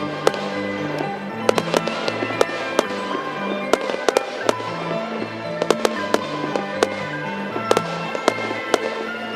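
Fireworks going off: many sharp bangs and crackles in quick, irregular succession, over music with a bass line moving between notes.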